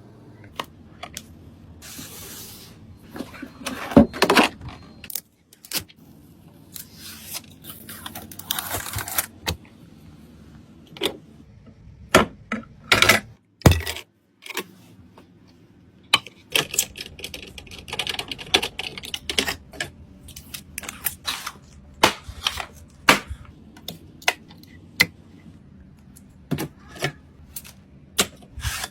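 Irregular clicks, taps and small clatters of computer parts being handled and fitted together during a PC assembly, with a few short stretches of scraping or rustling.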